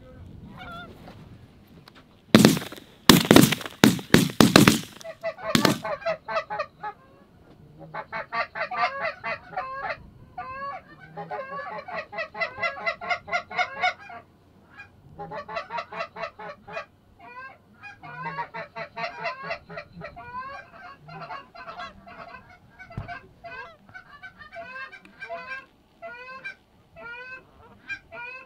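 A loud, harsh burst of close sound lasts about two and a half seconds a couple of seconds in. After it comes a long run of Canada geese honking and clucking, many short calls in quick overlapping clusters.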